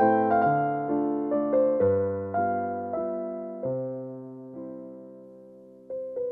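Background piano music, a slow gentle melody of single decaying notes; it fades toward the end, and new notes start just before it ends.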